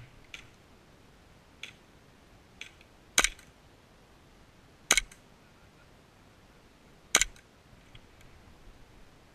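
Three shots from a gas airsoft pistol, sharp cracks about two seconds apart, with a few fainter ticks before them.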